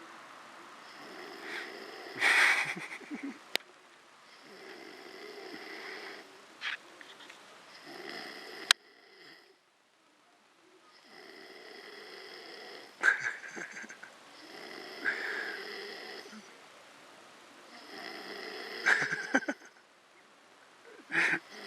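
Snoring in sleep: about six slow snoring breaths a few seconds apart, several peaking in a sudden harsh rasp.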